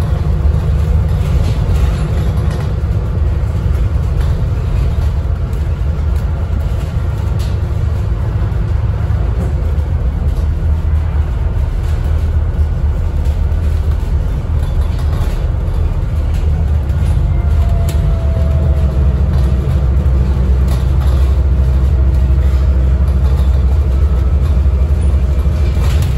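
Interior noise on the upper deck of a Scania N250UD Enviro400 MMC double-decker bus under way: the steady low drone of its five-cylinder diesel engine and road noise, with occasional light clicks and rattles. A faint whine comes in a little past halfway and fades near the end, as the drone grows slightly louder.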